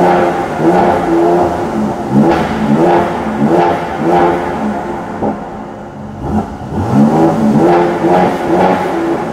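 Mercedes-AMG C 43's twin-turbo V6 being revved while parked, heard from inside the cabin: repeated throttle blips, the engine pitch rising and falling back with each.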